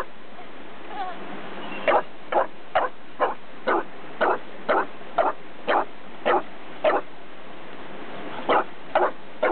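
English bulldog barking: a steady run of short barks, about two a second, with a short pause before two more near the end.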